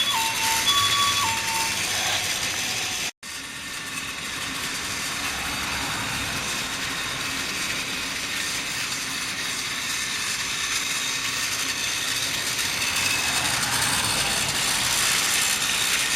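Trackmaster battery-powered toy trains running on plastic track: a steady whir of the small motors and gear drives with the wheels rattling over the rails. Over the first two seconds an electronic two-tone siren beeps.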